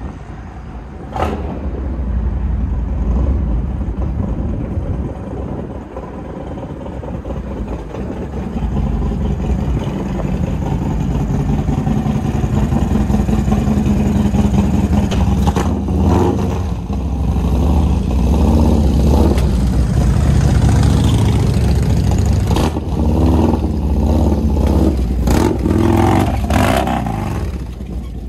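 Harley-Davidson Road Glide's big-bore 131-cubic-inch V-twin running through a big aftermarket exhaust, rumbling at low speed and growing louder as it comes closer. It revs in short bursts in the last few seconds as it climbs a loading ramp.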